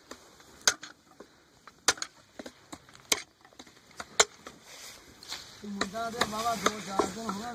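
Sugarcane stalks being chopped with a hand blade against a wooden log: four sharp chops a little over a second apart. In the last couple of seconds a voice talks over further lighter strikes.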